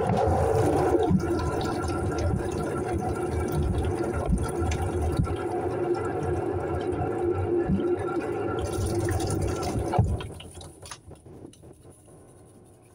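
Tap water running steadily, splashing into a sink or vessel, shut off about ten seconds in; faint scratching follows.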